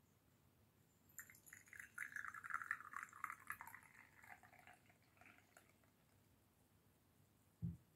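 Tea pouring from a porcelain teapot into a porcelain cup: a trickling stream that starts about a second in, sinks in pitch and dies away after about three seconds. A short soft thump near the end.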